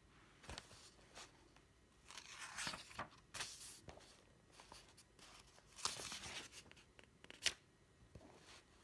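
Faint, irregular rustling and scraping noises in a few short spells, with one sharp click near the end.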